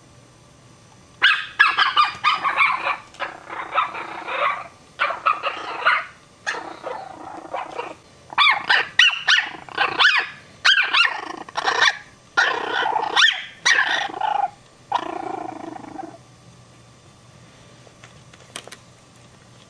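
Chihuahua puppies barking and growling: a long run of high yips, barks and growls from about a second in until a few seconds before the end.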